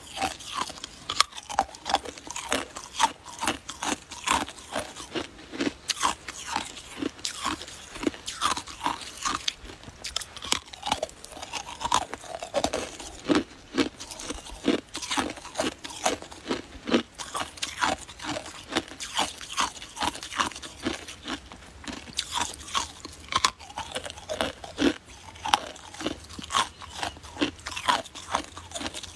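A person biting and chewing a long icicle: a steady run of crisp cracks and crunches of ice, several a second.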